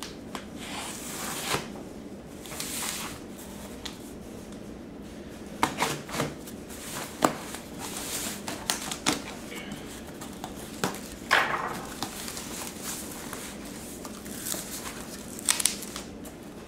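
Utility knife slitting packing tape on a cardboard box, then the box being handled and its cardboard flaps pulled open: scattered scrapes, rustles and light knocks, the louder ones in the second half.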